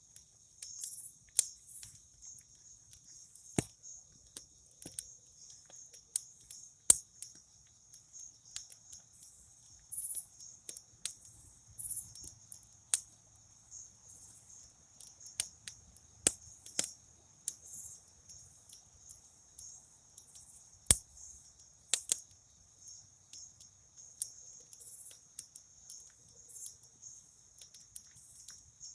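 Campfire crackling, with irregular sharp pops every second or two, over steady high-pitched chirring of crickets.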